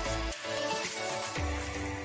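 Background music with held notes over a deep bass beat.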